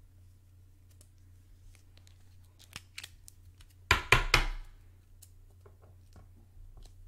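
Clear plastic card sleeve and rigid toploader handled while a trading card is slid in. There are a few light clicks, then a short loud burst of crackle and clatter about four seconds in, then faint ticks.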